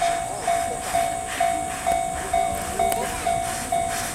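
Japanese railway level-crossing warning bell ringing steadily, a single repeated ding about twice a second, sounding as a train approaches the crossing.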